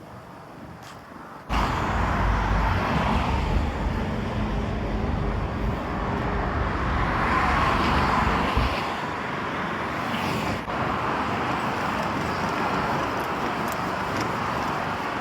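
Road traffic noise: cars passing close by, starting abruptly about a second and a half in, with heavy low wind rumble on the microphone through the first half.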